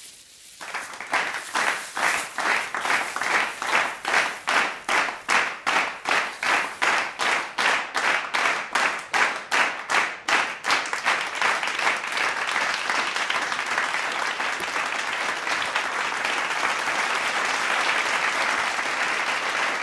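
Crowd applause sound effect: an audience claps in unison, about three claps a second, then after about eleven seconds breaks into continuous applause.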